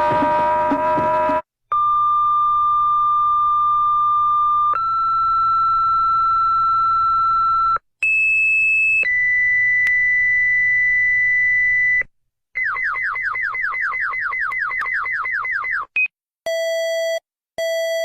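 Electronic emergency alert tones: a rising layered tone that cuts off, then long steady beeps at several pitches, each held about three seconds. Then a fast falling sweep repeats about four times a second, and near the end come two-tone beeps about a second long with short gaps.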